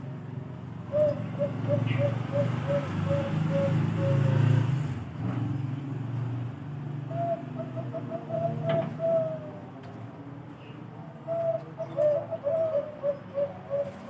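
Bangkok-strain zebra dove (perkutut) cooing: three runs of quick, evenly spaced soft notes, about a second in, around seven seconds and from about eleven seconds on, the last note of a run drawn out and lower. A low rumble runs under the first run.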